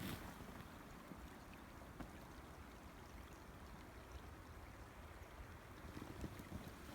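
Faint, steady rush of flowing river water, with a few soft low knocks near the end.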